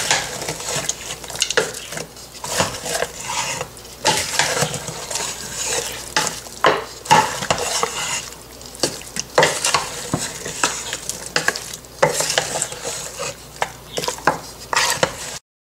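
Wooden spoon stirring raw goat meat, onions, tomatoes and a cup of water in a pressure cooker pot, mixing the wet contents with irregular knocks and scrapes against the pot.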